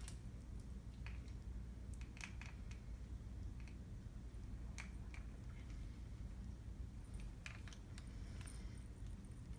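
Faint scattered clicks and rustles of hair being handled and wrapped around a curling wand, over a low steady hum.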